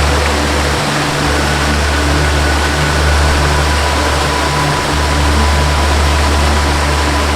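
Waterfall rushing steadily, with a slow melody of long held notes over a deep bass drone that shifts about a second in and again near five seconds.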